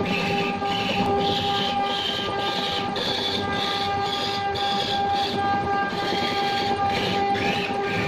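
Wood lathe running with a steady motor hum while a hand-held tool cuts the spinning wooden blank, a rasping hiss of shavings that comes and goes about twice a second.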